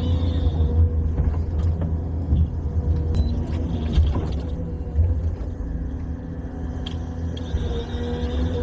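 A large machine engine running steadily with a deep rumble and a steady mechanical whine, with a few sharp knocks.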